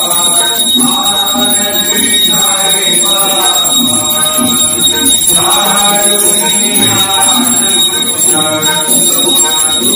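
Devotional singing with music, phrase after phrase of a held, chant-like melody, over a steady high-pitched electronic whine.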